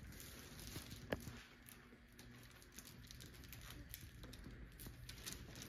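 Faint handling sounds: light taps and rustling from a toddler's hands on a plastic tablecloth and the party items on it, with one sharper click about a second in.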